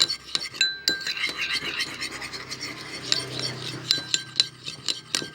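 Spoon stirring a thick starch-paste and water mixture for slime in a container, with rapid uneven clinks and scrapes of the spoon against the container's sides.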